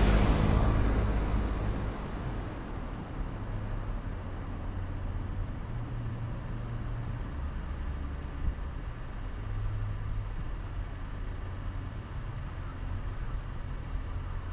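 Car driving sounds: a loud rush of road and wind noise fades away over the first couple of seconds, leaving a steady low engine and road rumble.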